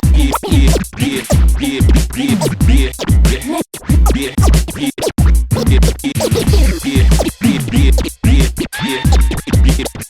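DJ scratching a sample back and forth over a hip hop beat: quick rising and falling pitch sweeps cut into short strokes, over a heavy kick drum about twice a second.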